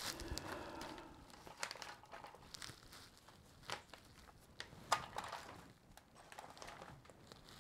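Quiet crinkling of plastic bags and packing being handled, with scattered light clicks and knocks of plastic toys; the sharpest knocks come about four and five seconds in.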